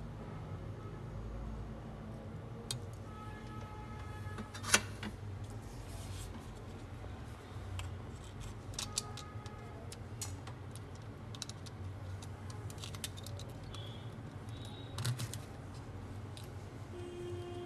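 Small clicks and taps of an opened Oppo F1s phone being handled and turned over in the hands, its frame and board knocking lightly, over a steady low hum; one sharper click about five seconds in.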